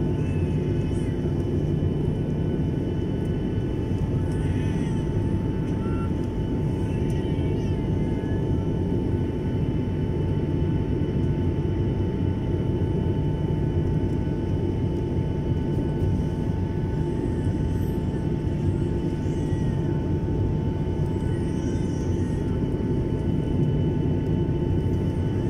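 Jet airliner cabin noise heard from a window seat over the wing during the climb after takeoff: the engines and airflow make a steady roar with a steady whine running over it.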